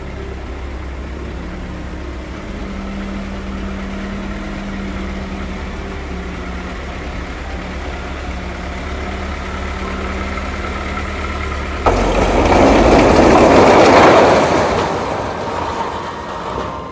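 Engine of a bamboo-loaded farm truck running steadily as it creeps down a steep bend. About twelve seconds in, a sudden loud burst of noise cuts in over it for about three seconds and then fades.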